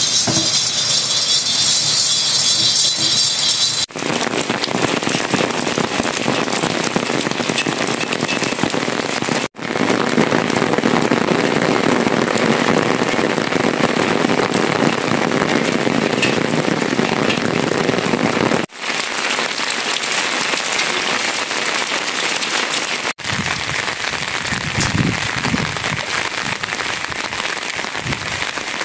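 Steady rain falling and pattering on the ground and roofs. For the first four seconds there is a different, higher hiss and crackle from grain being dry-roasted in an iron pan over a wood fire, which cuts off suddenly.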